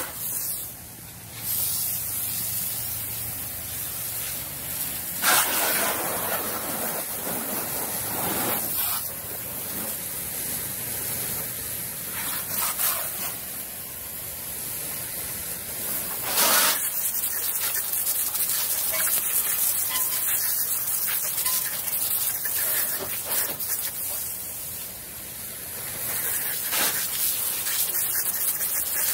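Water jet from a hose nozzle spraying onto a car's paint, glass and wheels: a steady hiss and splatter that swells and eases several times as the jet moves over different surfaces.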